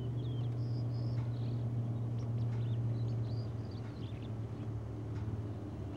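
A steady low engine rumble, with small birds chirping in short high calls over it.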